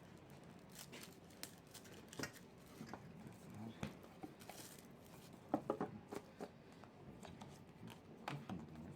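Scattered light clicks and rustling as a smartphone is handled and turned over, with a few louder handling knocks about halfway through.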